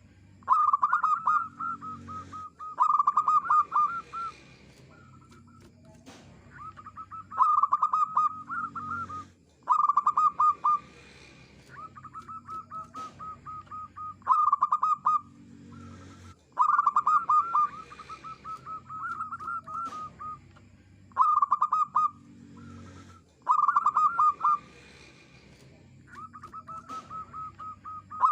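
Zebra dove (perkutut) cooing: repeated phrases of quick staccato notes, each a second or two long, loud phrases alternating with softer runs of notes.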